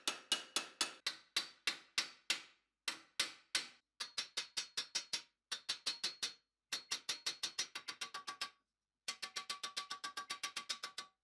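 Small hammer striking the edge of a thin, curved steel cuirass plate held over a stake anvil, about four or five quick blows a second in short runs with brief pauses. Each blow rings metallically.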